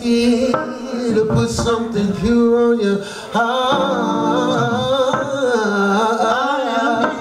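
Men's voices singing an R&B song, long held notes that waver in pitch, with a short break about three seconds in before the next phrase.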